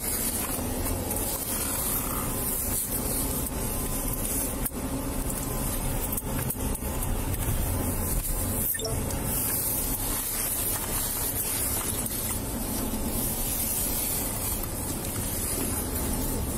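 Steady road and engine noise inside the cabin of a moving police patrol car, with a few faint clicks.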